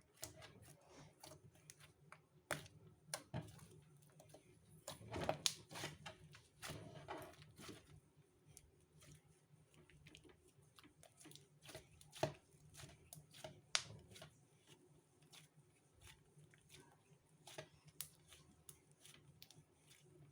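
Irregular small clicks and taps, with a busier stretch of tapping and rustling about five to seven seconds in.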